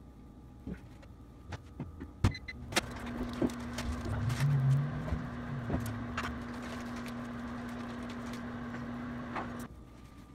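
A few clattering knocks of kitchenware, then two short beeps and a microwave oven running with a steady hum for about seven seconds before cutting off suddenly, typical of warming milk for bread dough.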